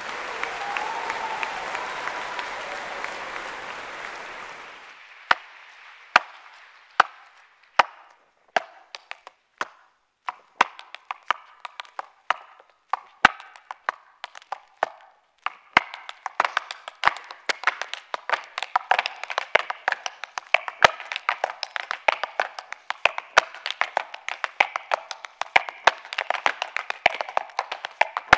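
Audience applause fades out about five seconds in. Then unaccompanied hard-shoe Irish step dancing begins: sharp heel and toe clicks on the stage, spaced out at first, growing faster and denser as the rhythm builds.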